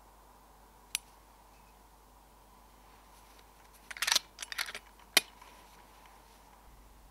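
Metallic clicks and rattles from handling an FX Dynamic Compact air rifle: one click about a second in, a short run of clicking and rattling around four seconds in, and a sharp click a second later.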